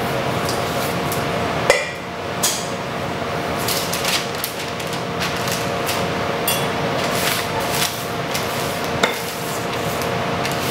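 A metal knife knocking and clinking against a granite counter as it works parmesan shortbread dough on parchment paper: about eight scattered sharp taps, a few with a short metallic ring. Underneath is the steady hum of kitchen ventilation.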